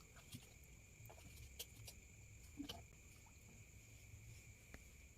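Faint night ambience: a steady high-pitched insect drone, with a few soft clicks scattered through.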